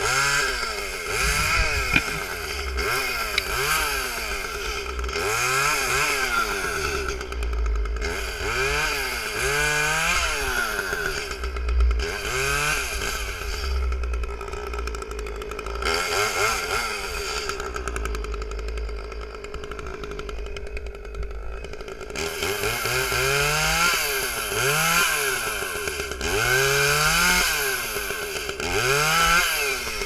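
Echo two-stroke chainsaw cutting tree branches, its engine revving up and falling back over and over, each rise lasting a second or two. It settles into a steadier, lower run for a few seconds about two-thirds of the way through.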